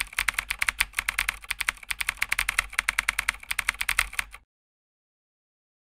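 Keyboard typing sound effect: a fast, even run of key clicks that goes with the text typing out on screen, cutting off suddenly about four and a half seconds in.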